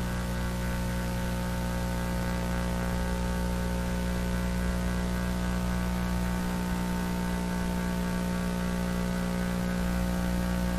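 Steady, buzzy electrical hum over a hiss of static: the broken audio feed of a failed Emergency Alert System test broadcast.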